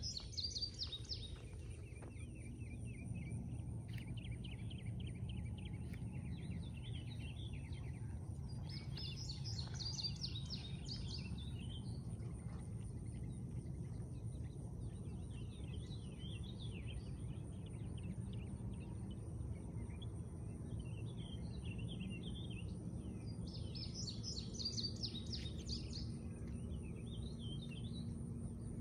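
Songbirds singing in repeated bouts of quick trilled song, loudest about ten seconds in and again near the end, over a steady low background rumble.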